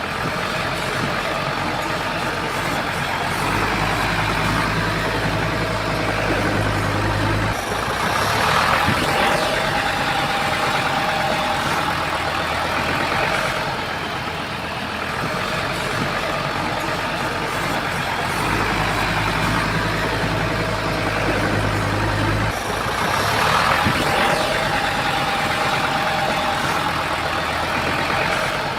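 Bulldozer's diesel engine working in a repeating cycle that comes round twice: a deep low drone for about four seconds, then a louder surge, the pattern repeating about every fifteen seconds.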